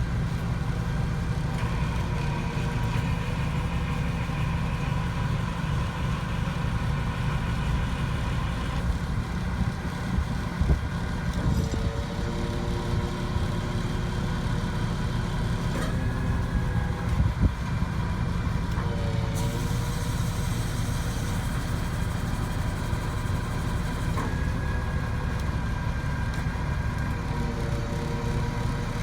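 A truck engine idling steadily, with faint shifting whine tones now and then and a couple of short knocks partway through.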